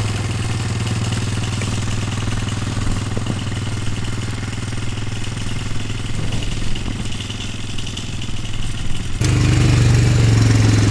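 Four-wheeler (ATV) engine running steadily while it drags a log across grass on a tow rope. About nine seconds in the engine becomes suddenly louder and closer.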